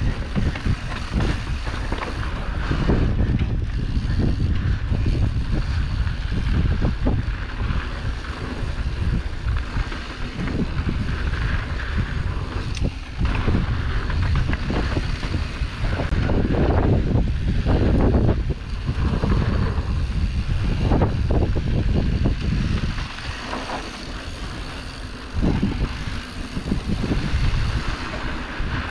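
Wind rushing over an action camera's microphone while a mountain bike rolls fast down a dirt trail, knobby tyres on dusty dirt, with irregular knocks and rattles from the bike over bumps.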